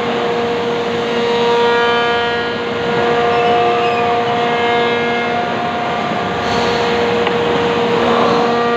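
Steady drone of woodworking factory machinery: several constant tones over a broad whir, some tones dropping out and returning partway through.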